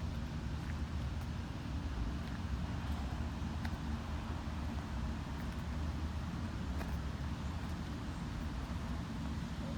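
Steady low outdoor rumble with a faint hiss above it and a few soft ticks.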